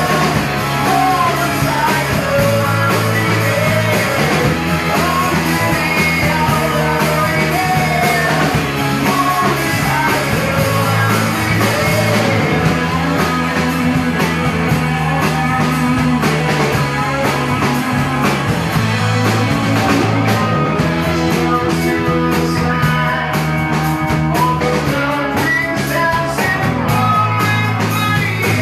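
Live rock band playing a song: a man singing into a microphone over electric guitars and a drum kit.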